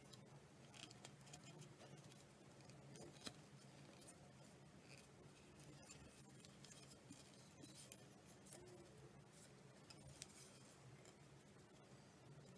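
Near silence: faint scattered ticks and rubs from hands handling a vinyl-wrapped tennis racket frame, over a low steady hum.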